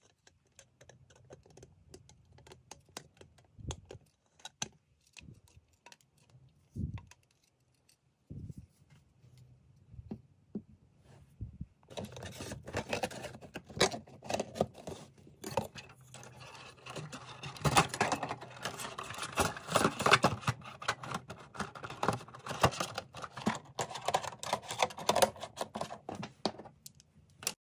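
A plastic lightstick and its cardboard box being handled: scattered clicks and knocks of the plastic globe and handle, then from about halfway a dense run of rustling, scraping and clicking that stops near the end.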